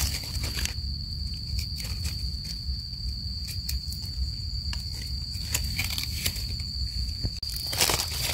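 A steady, high, thin insect drone, with dry leaf litter crackling and rustling under the hands in scattered clicks and a louder rustle near the end.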